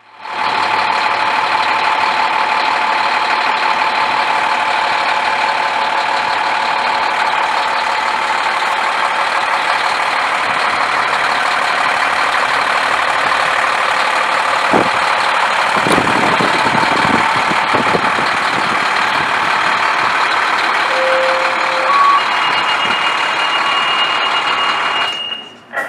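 Engine of a 2012 KME pumper fire engine running steadily at idle, up close. A few knocks come through about two-thirds of the way in, and a steady high tone sounds over the engine for the last few seconds before it cuts off.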